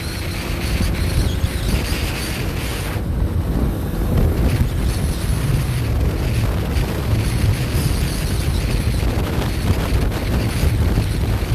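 Steady wind rushing over the microphone of a motorcycle on the move, with the bike's running noise underneath.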